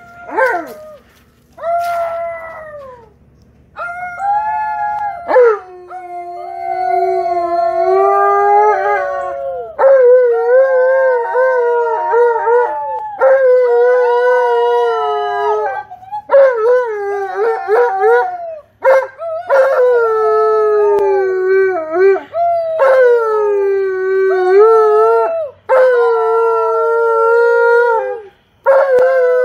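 An Alaskan Malamute howling together with two girls who howl with it: long, wavering howls that glide up and down and overlap one another, broken by short pauses. A couple of short calls come first, and the sustained howling starts about four seconds in.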